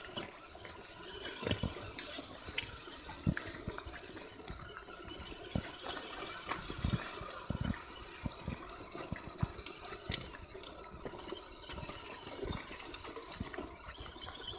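Steady rush like running water, with scattered irregular knocks and clacks of stones as two 1/10-scale electric RC trucks crawl over a rocky trail.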